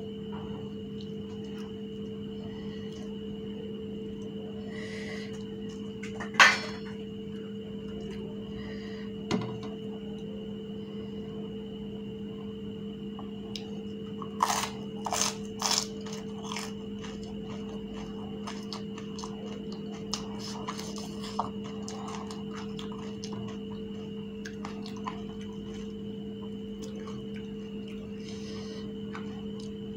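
Crisp hollow fuchka (pani puri) shells being cracked and a metal spoon clinking against ceramic bowls as the shells are filled. The sharp cracks and clicks are scattered: the loudest comes about six seconds in and a quick cluster falls around the middle. Beneath them run a steady low hum and a faint high whine.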